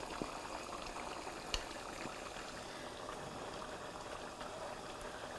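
Tomato-based meat stew boiling in a pot: a steady, soft bubbling with small pops, and one brief click about one and a half seconds in.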